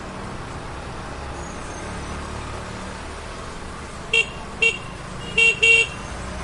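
Steady street-traffic rumble, then a vehicle horn gives four short toots starting about four seconds in, the last two close together.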